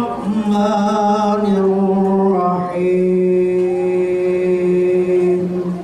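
A man chanting solo into a handheld microphone in long drawn-out notes; the last note is held steady for nearly three seconds and stops just before the end.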